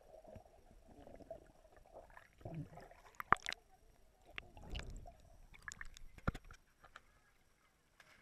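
Swimming-pool water heard from underwater, muffled: faint gurgling and sloshing with scattered sharp clicks and knocks, the loudest a little past three seconds in.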